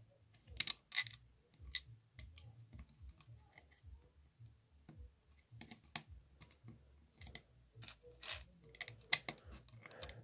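Plastic LEGO bricks being pressed together and handled, a string of irregular sharp clicks and snaps, the loudest a little after nine seconds.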